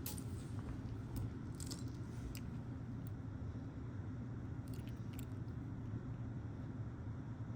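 Small metal costume-jewelry pieces clinking lightly as they are picked through and set down by hand: a handful of brief, scattered clicks over a steady low hum.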